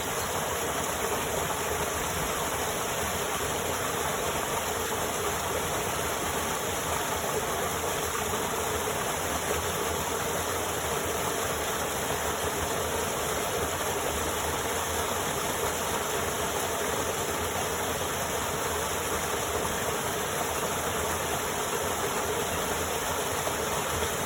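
Loud, steady rushing noise, even and unchanging, like hiss or static, with no voice or tune in it.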